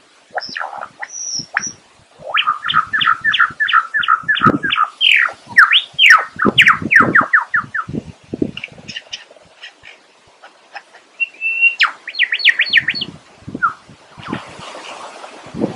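Male superb lyrebird singing a varied run of loud whistled notes, including a fast series of repeated falling notes and, later, a quick burst of high notes. A rustling hiss comes in near the end.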